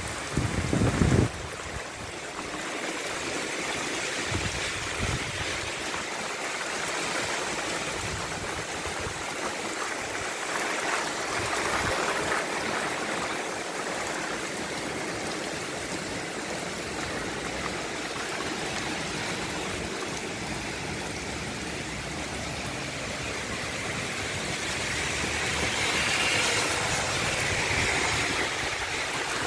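Heavy rain pouring steadily onto a street, pavement and parked cars: a dense, even hiss. There are a few low thumps in the first second or so, and the downpour swells a little louder near the end.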